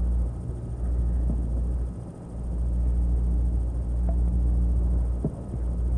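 Loud low rumble with a steady electrical hum on a low-quality tape recording. It starts suddenly and dips briefly about two seconds in and again near the five-second mark.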